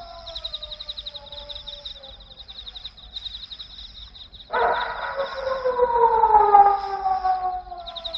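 Eerie night soundtrack: crickets chirping in a fast, steady pulse, under long, slowly falling wailing tones. About halfway through, a louder wail of several stacked falling tones starts suddenly and slides downward for about three seconds before fading.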